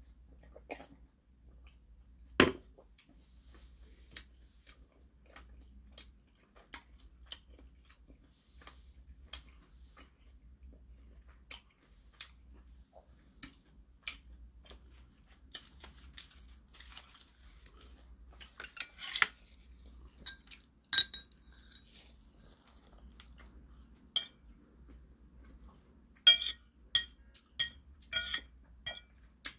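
Close-up eating sounds: scattered chewing and small mouth clicks, with a single sharp knock about two seconds in. Near the end comes a quick run of clinks and clicks as metal chopsticks work against the dishes.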